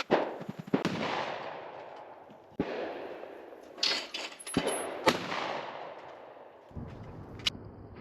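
Rizzini BR460 EL over-under shotgun fired several times at clay targets. Each shot is a sharp report that trails off in a long echo.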